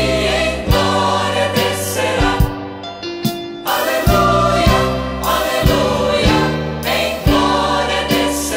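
Gospel vocal group singing a hymn in choral harmony with instrumental backing.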